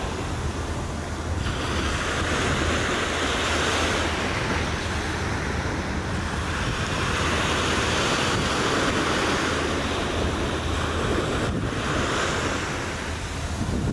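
Small surf washing up on a sandy beach, swelling and falling back every few seconds, with wind rumbling on the microphone.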